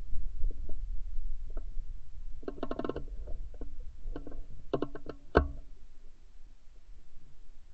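Low wind rumble on the gun-mounted camera's microphone, with scattered clicks and knocks and one sharp crack about five and a half seconds in.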